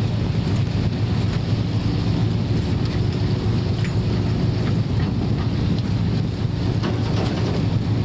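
Boat engine running at a steady drone under way, with wind noise on the microphone and the wash of the sea.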